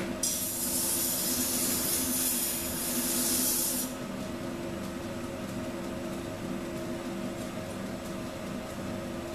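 Belt grinder running with a steady hum, while a heat-treated san mai steel knife blade is held to the moving belt for the first four seconds or so, giving a loud grinding hiss that cuts off suddenly. The grinder's motor and belt run on alone after that.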